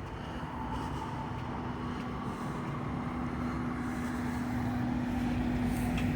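Steady low engine rumble with a constant hum, slowly growing louder.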